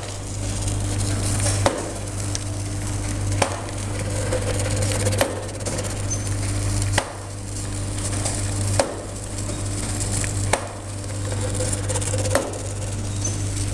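ORS powder sachet-filling machine running, its disc filler turning under the powder hopper: a steady motor hum with a sharp mechanical clack repeating about every 1.8 seconds.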